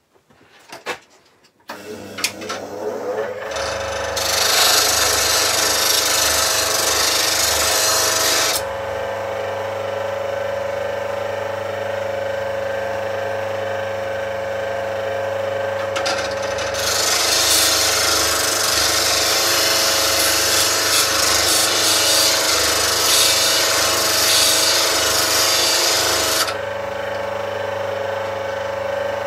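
Slow-speed bench grinder switched on a couple of seconds in and running with a steady hum, while a skew chisel held in a sharpening jig is ground on the wheel. The steel-on-wheel grinding hiss comes in two heavier passes, one about four seconds long and a later one of about ten seconds.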